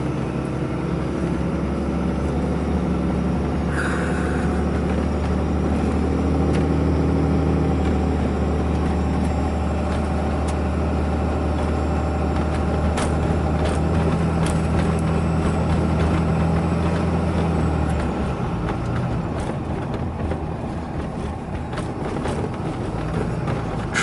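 Cab interior sound of a 2012 Ram 2500's 6.7-litre Cummins inline-six turbo diesel pulling the truck along the road, a steady low drone that eases off about eighteen seconds in.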